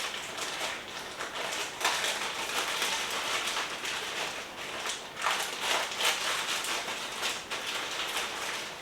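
Rain falling, a steady hiss with a few brief louder swells.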